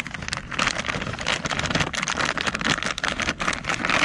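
Clear plastic zip bag crinkling and rustling as hands unpack a wiring kit from it, a dense run of quick crackles.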